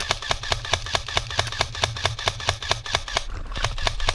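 Airsoft gun firing a long, rapid, even run of shots, about seven a second, with a brief lull about three seconds in.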